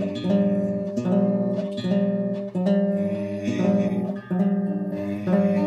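Acoustic guitar strummed, chords struck again about once a second, without singing.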